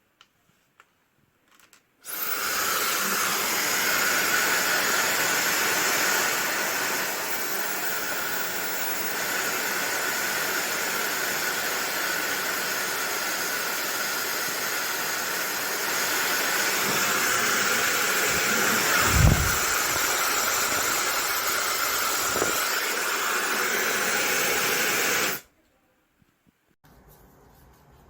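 YAPOY high-speed ionic hair dryer switched on and running: a steady rush of air with a steady high motor whine, then switched off abruptly about 23 seconds later. A short low thump partway through.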